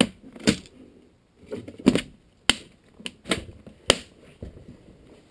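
Hard plastic parts organizer case handled on a bench: about seven sharp clicks and knocks at uneven spacing as its lid and body are moved and set down.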